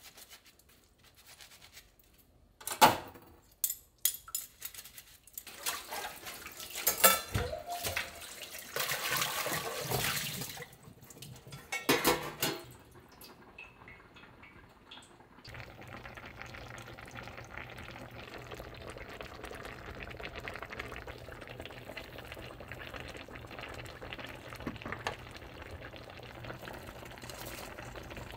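Dishes being washed by hand at a stainless steel kitchen sink: metal containers and tongs clink and clatter, with stretches of running tap water. From about halfway through, a steady low hiss and hum takes over.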